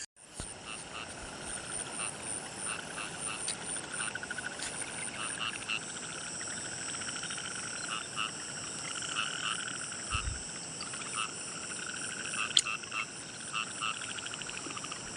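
Frogs calling in chorus: overlapping trains of rapid pulsed croaks that keep starting and stopping, over a steady high-pitched insect drone.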